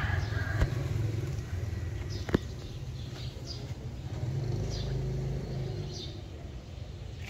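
Outdoor ambience: a steady low rumble with faint, short high chirps every second or so, and two sharp clicks about half a second and two and a half seconds in.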